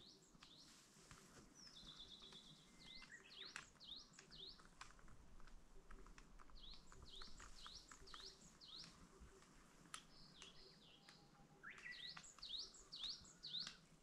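Wild birds singing, several at once: runs of quick high chirps that sweep up and down, with a rapid trill of short notes about a second and a half in and a few brief whistles.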